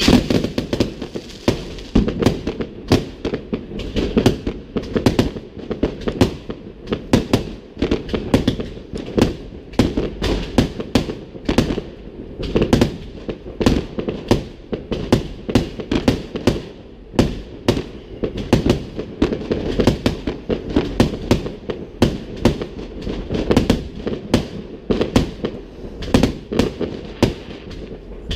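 Fireworks display going off in a continuous barrage: a rapid, irregular string of sharp bangs, several a second, over a constant low rumble that never lets up.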